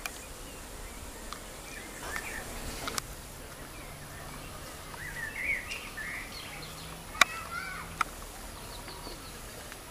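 Faint open-air ambience with small birds chirping now and then, and three sharp clicks, one near the middle and two close together a few seconds later.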